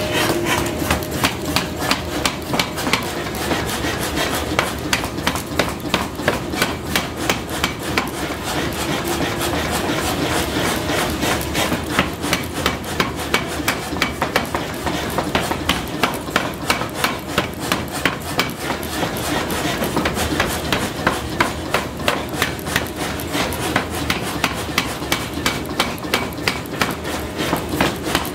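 Power hammer striking red-hot iron on its anvil die in rapid, regular blows, about three a second, over the steady running noise of the machine.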